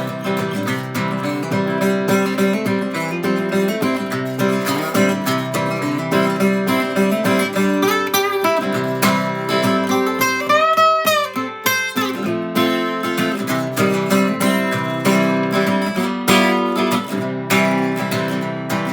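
Acoustic guitar played solo: an instrumental break of picked single notes over strummed chords, in a bluegrass style.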